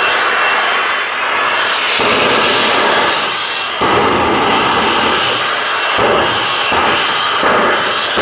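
Fire-truck show vehicle running loud and steady as it sets a car on fire, the sound growing louder a little under four seconds in.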